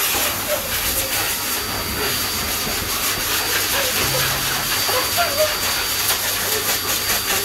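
Pet grooming blower dryer forcing air through its hose onto a dog's coat: a steady, loud hiss with a thin high whine over it. Faint voices underneath.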